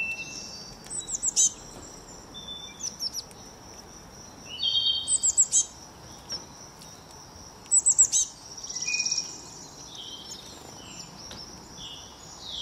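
Small songbirds chirping in short bursts of quick, high, falling notes, about a second in, around five seconds and around eight seconds, with a brief buzzy trill near nine seconds.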